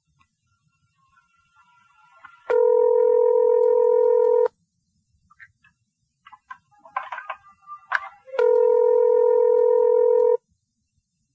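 Telephone ringback tone heard down the phone line: a steady ring of about two seconds, twice, with about four seconds of silence between. The called phone is ringing and the call has not yet been answered. Faint clicks on the line between the rings.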